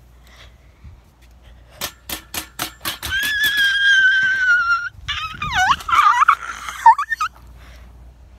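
A dog whining: a quick run of sharp short yips, then one long high whine held for about two seconds, then a whine that swoops up and down in pitch and breaks off before the end.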